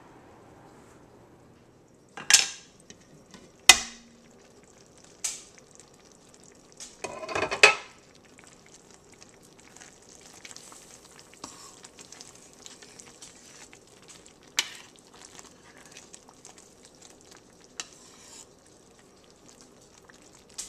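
Metal spoon stirring a thick, steaming pot of soup, with scraping and knocking against the pot over a faint simmering hiss. Several sharp clanks of cookware in the first half are the loudest sounds.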